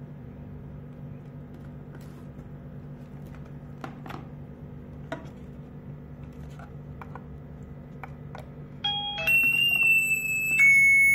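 Video door intercom ringing after its call button is pressed: a loud electronic chime ringtone of steady tones stepping from pitch to pitch starts about three-quarters of the way in. Before it, a steady low hum and a few faint clicks from handling the units.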